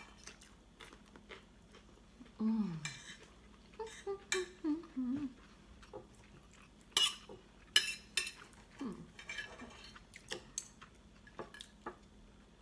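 Knives and forks clinking and scraping on ceramic dinner plates as roast beef is cut and eaten, in scattered sharp clicks, the loudest about seven and eight seconds in. A few short hummed "mmm"s of enjoyment come early on.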